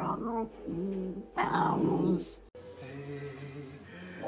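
Basenjis vocalizing in play: short pitched yodel-like calls and a rough growling burst. After a sudden cut about two and a half seconds in, a quieter low, steady drone follows.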